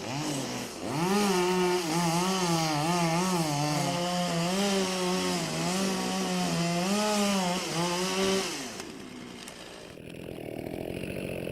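Chainsaw running at high revs while cutting wood, its pitch wavering up and down as the chain loads and frees. The engine note drops away about eight and a half seconds in, leaving only a quieter hiss.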